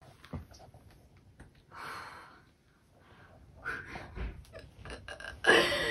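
Light knocks, clicks and rustling of someone settling in with a laptop, with a soft breathy exhale about two seconds in and a louder breathy exhale near the end.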